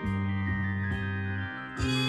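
Instrumental passage of a hip-hop track: held bass notes under sustained melodic tones, with the bass changing near the end.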